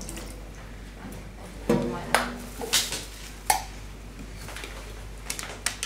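Sharp clicks and light metallic clinks from a small tin of canned yakitori being handled and its pull-tab lid opened. The loudest click, about three and a half seconds in, rings briefly.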